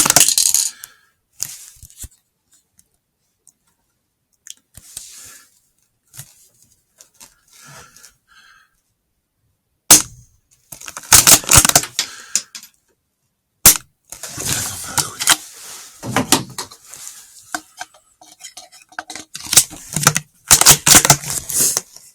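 Three sharp, loud cracks like gunshots: one right at the start, one about ten seconds in and one about fourteen seconds in. Between them come bursts of crackling, scuffling noise.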